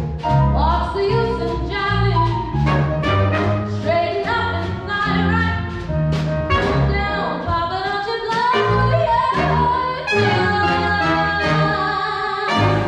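Small jazz band with a female singer playing a swing number live: vocals over piano, bass, drums and saxophones, trumpets and trombone. It ends on a final loud accented chord near the end.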